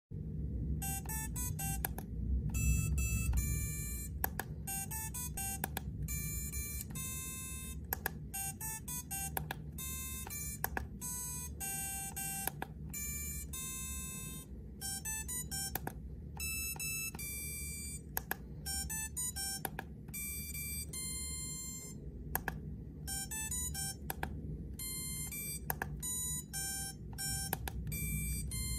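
DEF CON 30 Goon Sampling Keyboard badge playing short electronic beeping notes as its touch keys are pressed: a quick, uneven run of bright tones jumping between pitches, with short gaps, over a steady low hum.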